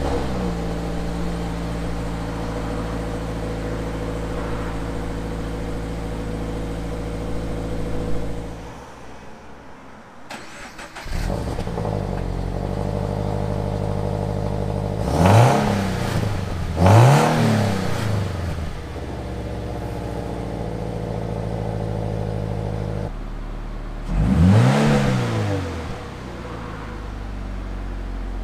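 Subaru BRZ's flat-four boxer engine heard at the tailpipes. With the fully stock exhaust it runs at a steady fast idle just after a cold start; after a brief drop it idles again, with two quick revs a little past the middle and one more rev near the end.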